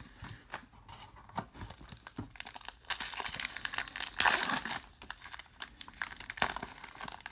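Crimped foil wrapper of a trading card pack being crinkled and torn open by hand, loudest about halfway through, after a few light clicks of cards being handled.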